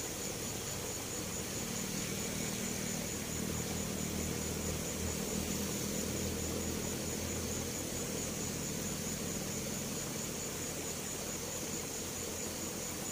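Steady outdoor background hiss with a constant high, pulsing whine. A low motor hum swells about one and a half seconds in and fades away near ten seconds.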